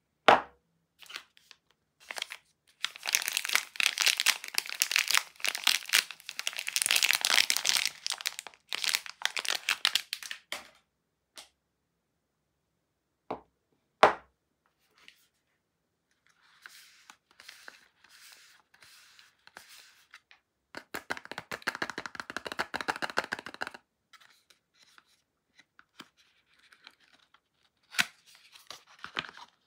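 Soap packaging torn open and crinkled by hand in two long spells, with lighter rustling between, ending as a cardboard soap box's flap is pulled open. Sharp knocks as bars of soap are set down on a wooden table, just after the start and about fourteen seconds in.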